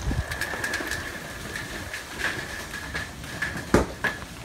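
Muffled handling noise of a phone held with its lens covered: scattered clicks and rubbing, with one louder knock near the end, over a faint steady high whine.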